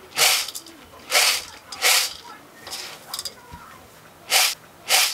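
A series of short, sharp hissing bursts, about six of them, unevenly spaced; one near the middle is fainter.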